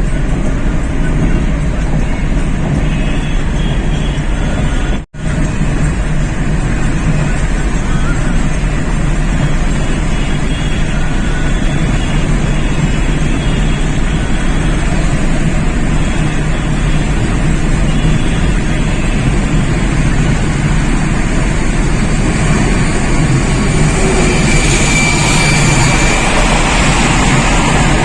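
Steady noise of a vehicle in motion, a low hum with rushing hiss, broken by a split-second dropout about five seconds in.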